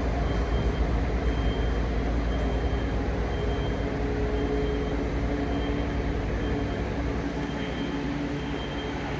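Diesel train engine running with a steady low rumble, with a faint high-pitched beep recurring every second or so.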